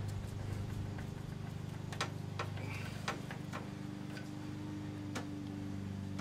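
Scattered light clicks and taps of a screwdriver and metal handle parts being handled while taking apart an outboard's control handle, about five sharp ticks spread through, over a steady low hum.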